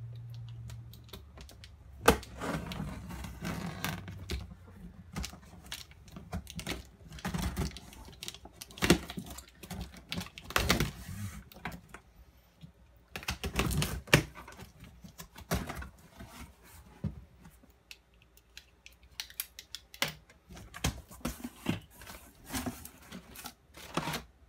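A cardboard shipping box is opened by hand: packing tape is cut and pulled off, the flaps are pushed open, and crumpled newspaper packing is rummaged. It comes as irregular rips, scrapes and clicks, with a few longer tearing stretches.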